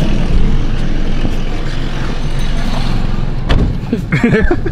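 Someone climbing into a car's driver's seat, with the car door shutting in one sharp thud about three and a half seconds in, over a steady background rumble.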